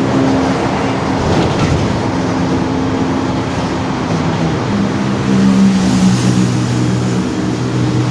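Rear differential of a Mercedes-Benz OF-1721 city bus growling very loudly while the bus is driving: a droning gear whine that steps to new pitches as the speed changes, over engine and road noise.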